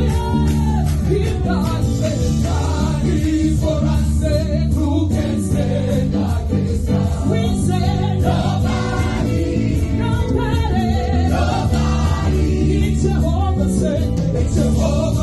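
Gospel worship song: a choir of voices singing together over music.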